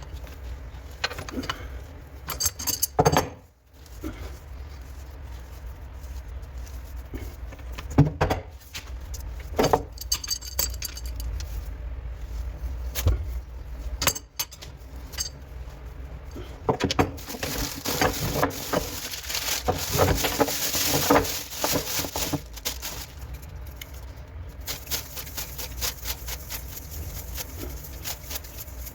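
Metal tap fittings and tools clinking, rattling and knocking as they are handled, in scattered separate strikes. About two-thirds through, a few seconds of steady hiss.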